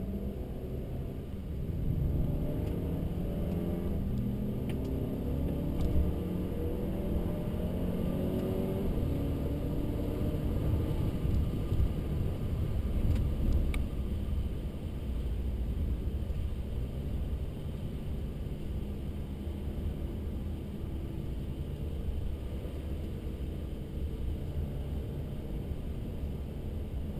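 Mercedes-Benz C300 engine heard from inside the car, pulling away with its pitch rising several times over the first ten seconds or so as it accelerates through the gears, then running more steadily under a low rumble.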